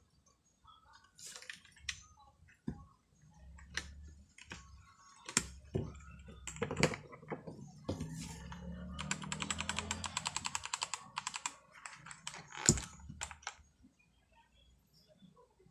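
Keys being pressed on a LEAVEN K550 budget mechanical keyboard. Scattered single keystrokes are followed, about halfway through, by a fast, even run of clicks lasting a few seconds, then a few more single presses.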